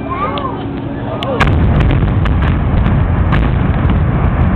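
Demolition charges in the Qwest building firing as a rapid string of sharp cracks starting about a second in, under a sudden, heavy low rumble from the building's implosion that carries on steadily.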